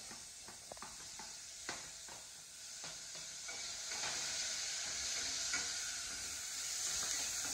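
Onions, green chillies and tomatoes sizzling in a hot pan as they are stirred, with a few light clicks of the spoon against the pan. The sizzle grows louder about halfway through.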